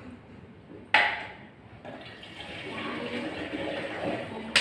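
Murky bran-and-water mixture scooped from a plastic basin with a cut-off plastic bottle, a sharp splash about a second in, then a steady pour through a funnel into a large plastic water-cooler gallon.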